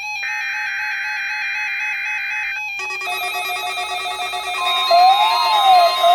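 NOAA Weather Radio Emergency Alert System signalling for a required weekly test. The first part is SAME header data bursts, a harsh digital screech in two bursts with a short gap, ending a little over two seconds in. Near the end, a steady alert tone sounds with a siren-like tone rising and falling about once a second over it.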